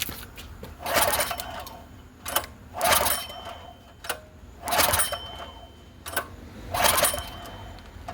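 Recoil starter of a Predator 212 single-cylinder four-stroke engine pulled four times, about two seconds apart, each pull a short whir as the engine turns over, with light clicks between pulls. The engine cranks without starting: a no-start.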